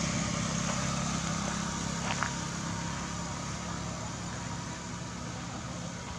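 A steady low engine hum, like a motor idling, over outdoor background noise, with one short tick about two seconds in.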